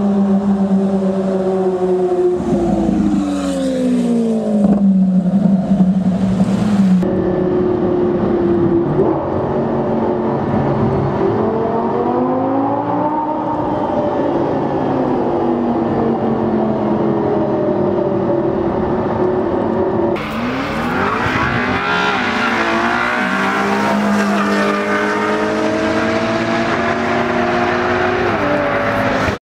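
Supercar engines in three cut-together clips: first a Lamborghini Aventador's V12 running at steady revs, then its pitch falling; after a cut about seven seconds in, an engine heard from inside a car in a road tunnel, holding steady revs with one rise and fall in pitch; after another cut about twenty seconds in, an engine revving up hard and then holding high revs.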